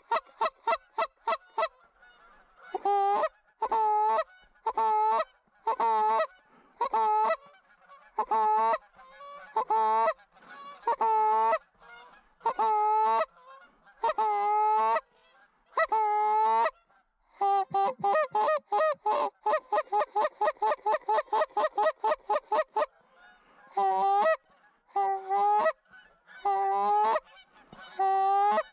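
Goose honking, one voice at a time: a quick run of short honks, then single drawn-out honks about one a second, another quick run past the middle, and single honks again near the end.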